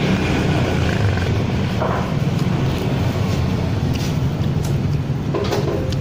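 Motorcycle engine idling with a steady low rumble, with a couple of brief sounds about two seconds in and near the end.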